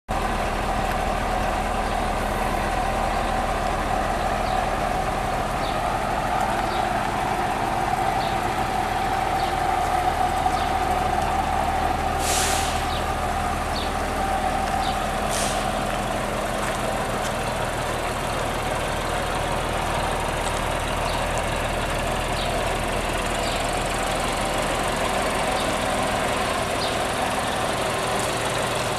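Volvo B58 bus's six-cylinder diesel engine idling steadily. Two short bursts of compressed-air hissing from the bus's air system come about twelve and fifteen seconds in.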